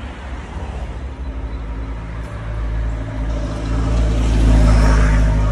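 A road vehicle's engine running close by with a low, steady hum, growing much louder over the last few seconds as it draws near.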